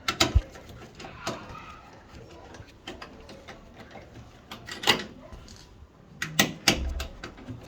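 Scattered knocks and clicks of hands and tools working on a Bosch washing machine's casing as its top cover is taken off, with the loudest knocks about five seconds in and near the end.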